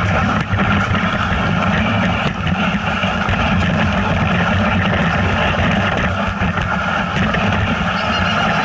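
A motor vehicle's engine running steadily under way, a continuous low drone with hiss over it.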